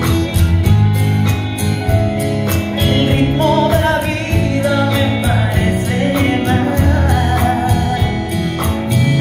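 A woman singing a ballad live with a band, her voice over bass, guitar and a steady drum beat.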